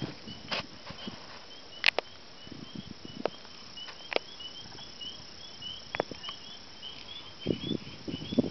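A steady run of short, high chirps, about three a second, from a small animal calling at night, with a few sharp clicks and some low muffled thumps near the end.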